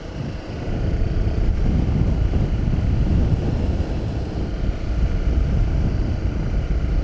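Honda CRF250 Rally's single-cylinder engine running as the bike rides along a sealed road, mixed with heavy wind buffeting on the microphone. It gets louder about a second in, then holds steady.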